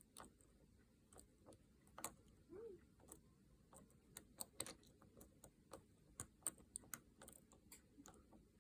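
Faint, irregular small metallic clicks of a lock pick working the pin stack of a Master Lock LOTO padlock under light tension, as pins are lifted and set one by one.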